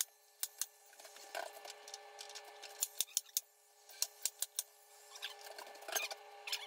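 Cordless nail gun shooting nails into wood crown molding: a string of sharp clicks at irregular intervals, some in quick clusters, over a faint steady hum.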